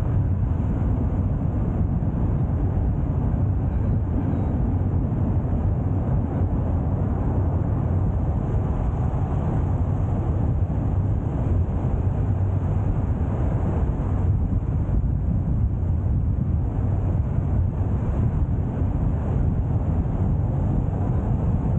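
Car driving at a steady pace: a constant low rumble of road and engine noise.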